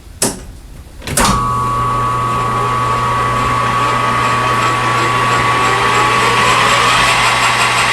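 Metal lathe switched on: a click, then about a second in the motor and gearing start up and run steadily with a low hum and a higher whine.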